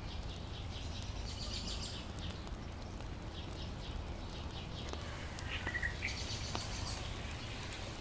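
Outdoor rural ambience: birds chirping in short, quickly repeated calls over a steady low background rumble, with a couple of faint clicks in the middle.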